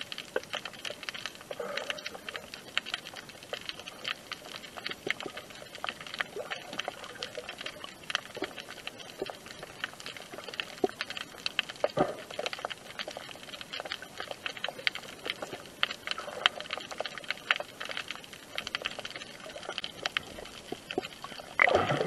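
Underwater crackling: a dense, steady patter of small clicks and snaps over a rocky seabed, picked up by an action camera sealed in its waterproof housing below the surface.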